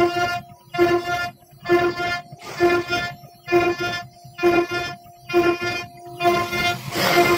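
A steady-pitched tone sounding in short repeated pulses, a little over once a second.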